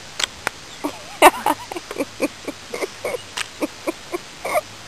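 Giggling: a run of short, squeaky bursts, about four a second, rising and falling in pitch.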